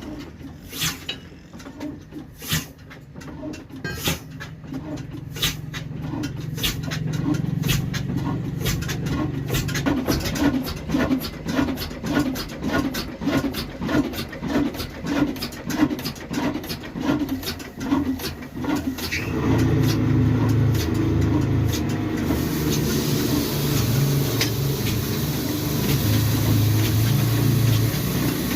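Heavy old diesel engine starting up on a flour mill: slow, even firing knocks that grow louder and quicken to about two a second, then about two-thirds through it settles into a louder, fuller steady running. Near the end a steady hiss joins in.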